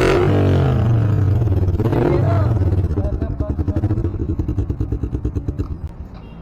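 Yamaha R15 V4's 155 cc single-cylinder engine running through a newly fitted aftermarket exhaust. It is revved twice, about two seconds apart, then drops back to idle, and the level falls away near the end.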